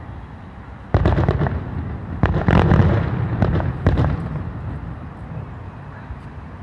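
Aerial fireworks shells bursting at a distance: a quick run of bangs about a second in, a bigger boom near the middle and another a second later, each with a rolling rumble that dies away.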